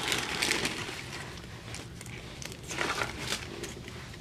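Clear plastic bag and old paper candy wrappers crinkling as they are handled, in short irregular bursts.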